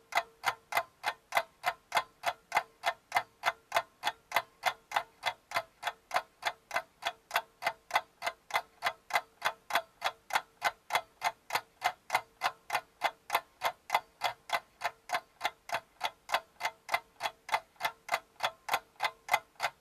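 A clock ticking fast and evenly, about four ticks a second, over a faint steady hum. It fills a pause as a waiting-for-the-answer sound effect after a quiz question.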